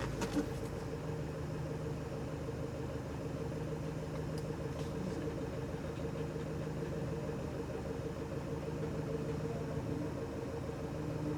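Renault Trafic camper van's engine running steadily at low revs, an even hum.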